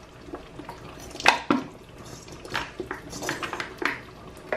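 Light clicks and clinks around a stainless steel stew pot, about six spread over the few seconds, as palm oil is poured into it from a plastic bottle.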